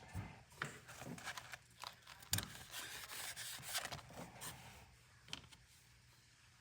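Faint handling sounds: scattered light clicks with rubbing and scraping, dying away near the end.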